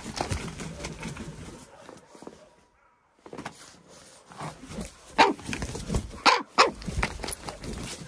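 Common raven scuffling and flapping in the snow, then giving several short, harsh, bark-like calls from about five seconds in.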